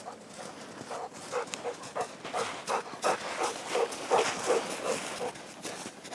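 A dog panting close by, in short rhythmic breaths about three a second, with crunching in deep snow.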